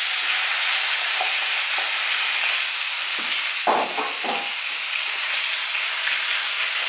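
Diced chicken breast sizzling steadily in hot olive oil in a deep non-stick wok, with a few short knocks and scrapes of a wooden spatula stirring it about three to four seconds in.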